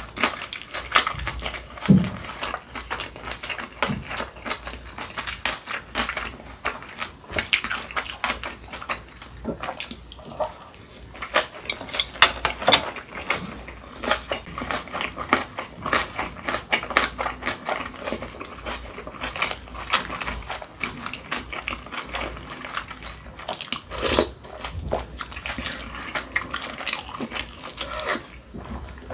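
A person eating noodle soup: slurping wheat noodles and broth and chewing, with a steady run of wet clicks and smacks.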